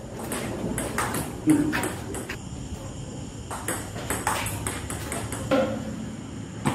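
Table tennis rally: the celluloid ball clicking off the paddles and bouncing on the table, a quick back-and-forth of sharp knocks, often in close pairs.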